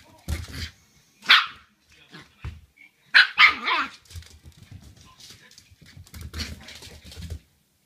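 Shiba Inu puppy barking sharply again and again, the loudest barks about a second in and around three seconds in, with low thumps of movement in between. The puppy is barking at its owner's feet, which the owner takes for anger at their smell.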